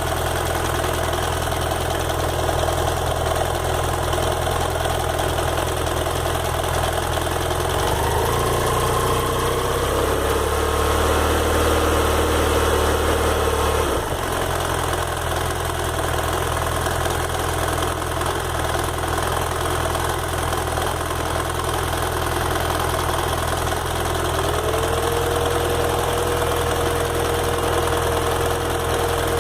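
BMW F 800 GS parallel-twin engine idling hot, the state in which the owner hears an intermittent tick-tick that stops when he revs it and that he believes is normal. Its note shifts for several seconds about a third of the way in, and a steady whine sets in near the end.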